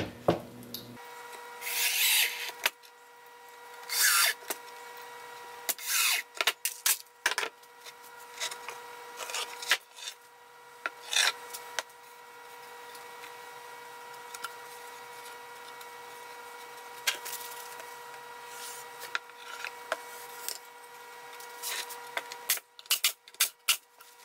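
Wooden strips being handled and pressed onto a plywood beehive cover: wood rubbing and scraping on wood in short bursts, with light knocks and a quick run of clicks near the end. A steady faint whine runs underneath from about a second in.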